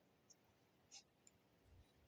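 Near silence: quiet room tone with a few faint, short clicks and a soft low thump near the end.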